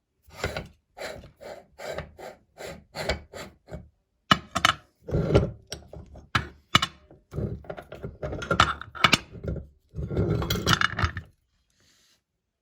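Meat grinder crushing white chocolate candy: a run of crunching, grating bursts with sharp cracks, regular at about two or three a second at first, then louder and more irregular, stopping suddenly near the end.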